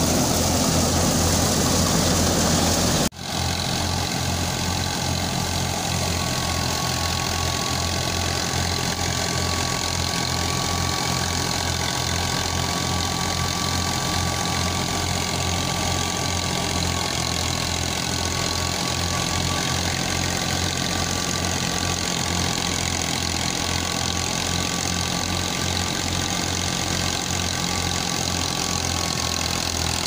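Tractor engine running steadily under load, belt-driving a wheat thresher: an even low beat from the engine with a steady high whine over the whirr of the machinery. About three seconds in the sound breaks off for an instant and comes back a little quieter.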